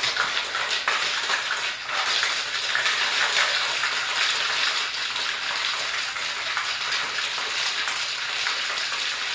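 Ice rattling and churning inside a metal-and-glass cocktail shaker shaken hard and fast, a dense, continuous rattle. The shaker is packed with ice and liquid, being shaken to chill the drink and mix in the cream of coconut.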